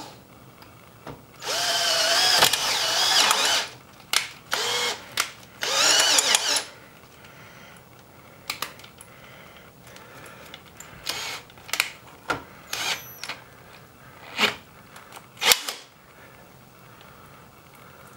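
A power drill boring into the underside of a Husqvarna TR650 motorcycle swingarm. It makes a run of about two seconds with a whine that wavers in pitch, then several shorter runs, followed by scattered short clicks and blips.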